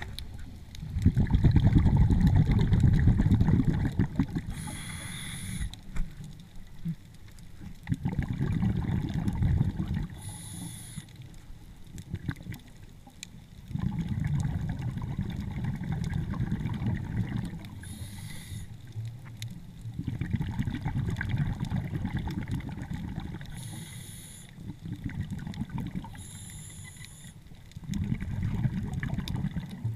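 Underwater breathing of a scuba diver: bursts of exhaled bubbles rumble for a few seconds about every six seconds, with a short high hiss from the regulator between them.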